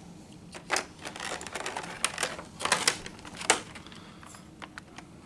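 Clear plastic blister trays of miniatures being handled, giving irregular crinkles and clicks, the sharpest one about three and a half seconds in.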